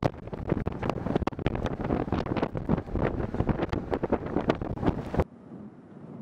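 Gale-force wind buffeting the microphone in loud, gusty blasts. It cuts off abruptly about five seconds in, leaving a much quieter low hiss.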